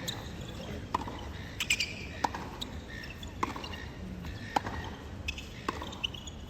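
Tennis rally: a ball struck by rackets with sharp pops about once a second and softer bounces on the court between them, over a steady background hum of the stadium.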